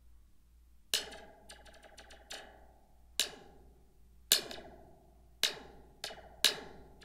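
A pen tapping a large, loose metal helical spring cut from a toy, with a plastic cup clipped to its end, about once a second. Each tap is a sharp click followed by a short springy ringing that dies away: the spring's laser-shot-like sci-fi sound.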